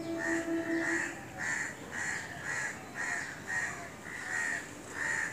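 A bird calling over and over, short calls about two a second.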